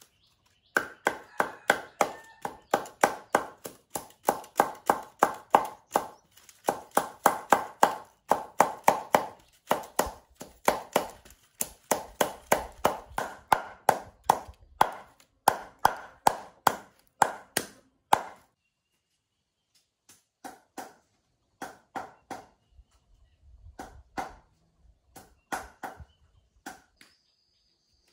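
A knife chopping through the loose bamboo strip ends around the rim of a woven bamboo basket, striking down onto a wooden block. The sharp chops come at about two to three a second, stop briefly about two-thirds of the way through, then come more sparsely.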